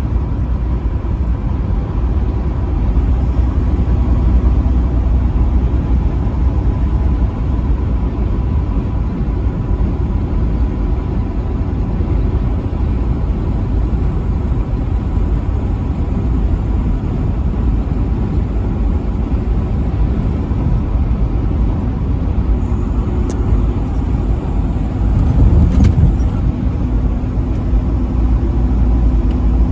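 Steady low road and engine rumble of a vehicle driving on a highway, with a faint steady high hum. Near the end the rumble swells briefly.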